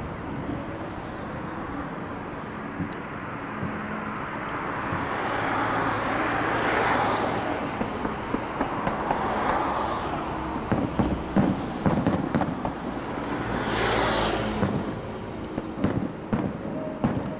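Fireworks display: rushing hisses of shells going up, then clusters of sharp bangs and crackles from the bursts, a little past the middle and again near the end, over a steady low background rumble.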